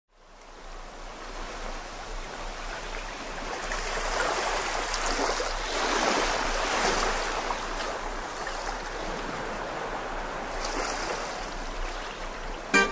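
Sea surf washing onto a rocky shore, a steady rush that fades in at the start and swells in the middle. Music starts right at the end.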